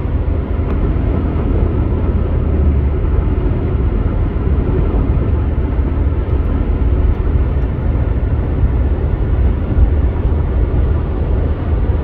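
Steady road and wind noise of a car driving at highway speed, heard from inside the car: a constant low rumble.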